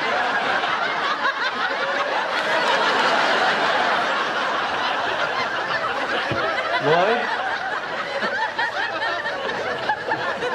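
Sitcom studio audience laughing, a long unbroken wave of many people's laughter that holds steady for about ten seconds. About seven seconds in, one voice rises in pitch above it.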